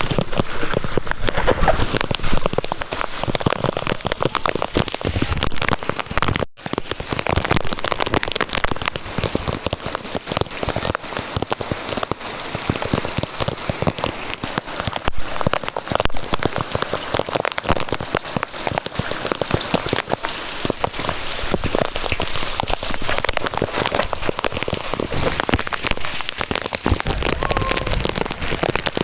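Heavy rain falling and pattering on hard surfaces, a dense steady hiss made of many small drop impacts. The sound cuts out for an instant about six seconds in.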